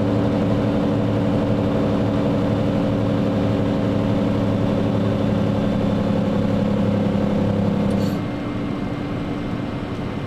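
Scania R114 380 truck's 11-litre straight-six diesel running steadily, heard from inside the cab. About eight seconds in there is a click, and the engine's even note drops away, leaving quieter engine and road noise.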